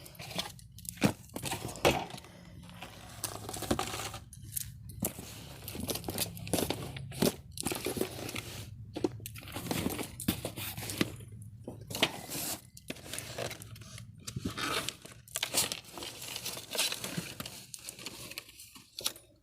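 Store merchandise being handled and moved: plastic packaging crinkling and rustling, with irregular small clicks and knocks.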